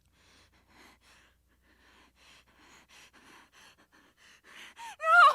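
A woman breathing hard in quick, panicked gasps that grow faster and louder, then breaking into a loud, wavering scream near the end.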